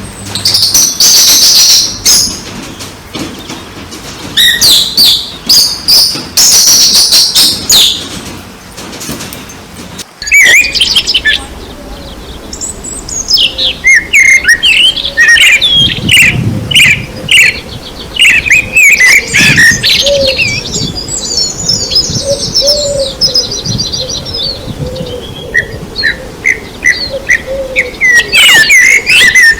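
Birds singing and chirping loudly, with rapid repeated high calls and trills. The sound changes abruptly about a third of the way through to a denser chorus of quick chirps.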